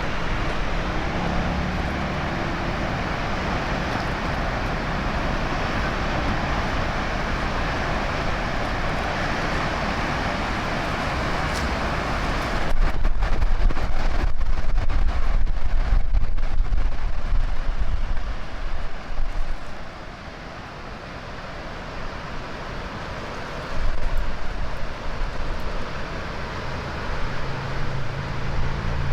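Steady rushing of a waterfall, with wind gusting over the microphone in a louder, rumbling stretch a little before the middle that dies down shortly after.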